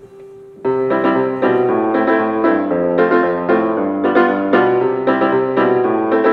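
Piano-led background music that starts abruptly about half a second in, after a held note fades, with bright chords struck at a quick, steady pulse.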